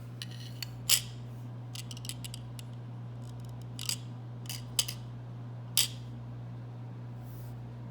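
Scattered sharp clicks and snips of small hand tools and parts being handled, the loudest about a second in, over a steady low hum.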